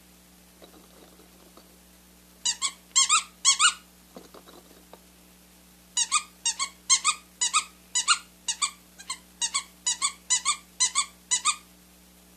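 Short, sharp, high-pitched squeaks, mostly in quick pairs: a few about two and a half seconds in, then an even run of roughly two pairs a second for about five seconds. Faint rustling comes between the squeaks.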